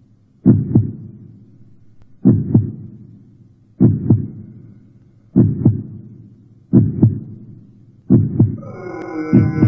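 Heartbeat sound effect: a low double thump, lub-dub, repeating about every one and a half seconds and quickening slightly. Near the end a sustained music chord swells in over it.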